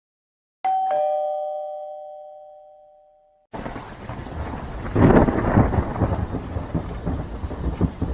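A two-tone doorbell chime, a higher note then a lower ding-dong, rings out and fades over about three seconds. Then a rainstorm starts: steady rain with a thunder rumble that swells about a second and a half in.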